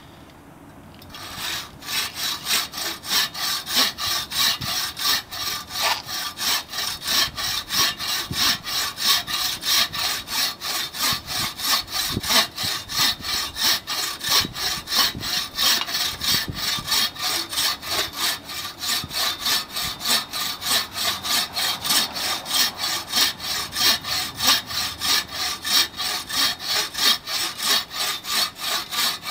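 TrailBlazer 24-inch takedown buck saw cutting through a 10-inch log by hand. It makes steady back-and-forth strokes, two to three a second, starting about a second in.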